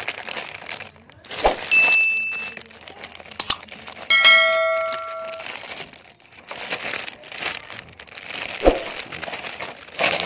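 Thin plastic packaging bag crinkling and rustling as a toy dump truck is unwrapped by hand, with a few sharp clicks of handling. About four seconds in, a loud bell-like ring fades out over a second or so, after a shorter high ding about two seconds in.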